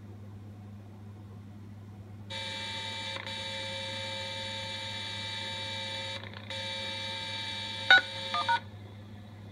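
A steady electronic buzz comes on a couple of seconds in over a low constant hum. It drops out briefly and resumes, then stops near the end. Just before it stops there is a sharp click and two short beeps at different pitches.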